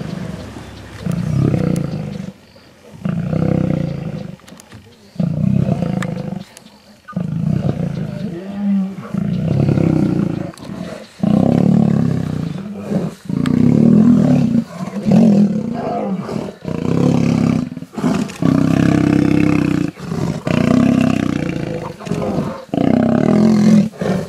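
Male lions roaring: a long run of deep calls, each a second or two long, with short breaks between.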